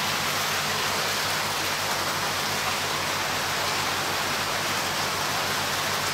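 Steady rush of running water, with a faint low hum underneath.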